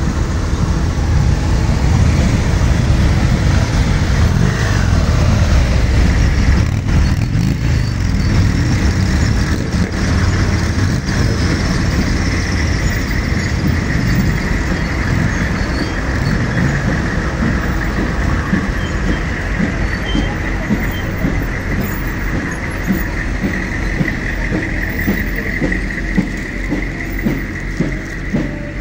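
Navy motorcycles and Humvees driving past slowly in a column, engines running with a heavy, steady rumble and a steady high tone through the middle. Near the end come regular thumps.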